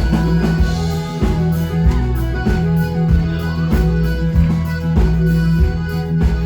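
Live band playing an instrumental break of a country-folk song, with guitar over a steady bass and drum beat.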